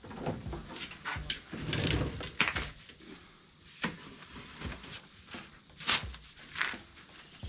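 Tools and metal parts being handled in a small shop: irregular clinks, clicks and knocks with some rustling, loudest a couple of seconds in and again about six seconds in.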